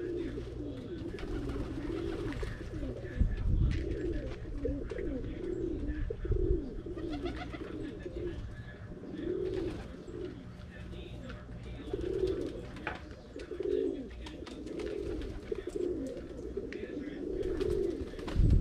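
Pigeons cooing: a steady run of low, rising-and-falling coos, roughly one a second. A low rumble swells briefly about three seconds in and again at the end.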